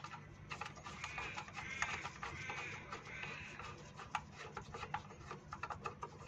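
Hand wrench loosening a 12 mm bolt on a Nissan Pathfinder's throttle body mount: light clicks and a run of short squeaks about every 0.7 s.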